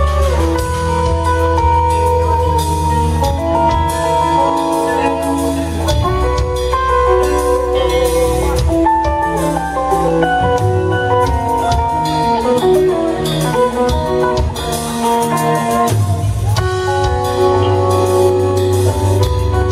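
Live instrumental music from a guitar, bass and drum trio: electric guitar playing a fast melodic lead line over bass guitar and drum kit.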